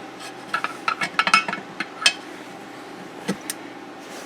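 Metal hand tools being handled: an uneven string of sharp clinks and taps, as in setting down and picking up tire tools at the wheel.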